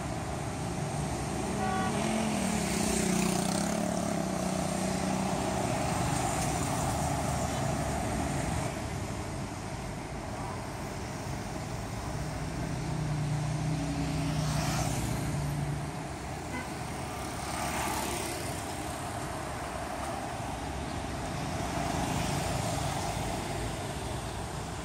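Road traffic: motorbikes, cars and trucks passing, engines running and tyres on asphalt. A deeper engine hum swells and fades twice as heavier vehicles go by.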